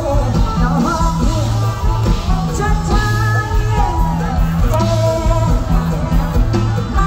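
Live Thai mor lam band music: a steady, heavy bass and drum beat with singing over it.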